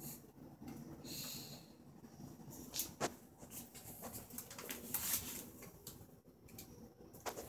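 Light scattered clicks and taps of a guinea pig's plastic exercise ball rolling and bumping on a tile floor, with a short breathy hiss about a second in.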